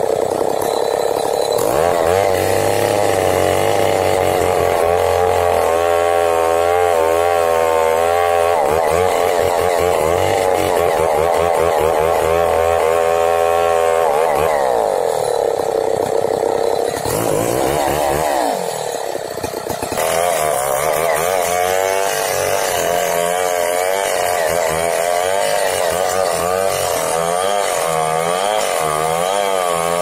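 Two-stroke chainsaw running at high revs while cutting into the trunk of a large standing tree; its pitch wavers up and down as the chain bites and frees in the wood, with a brief dip a little past halfway.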